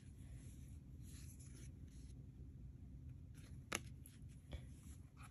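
Faint rustle of paper playing cards being slid and lifted off a pile on a cloth, with one sharp click a little past halfway.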